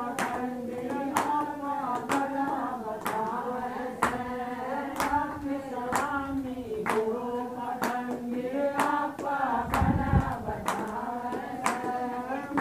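A group of women singing a Hindi Shiv bhajan together in unison, with no instruments, clapping in time about once a second. A low thump sounds about ten seconds in.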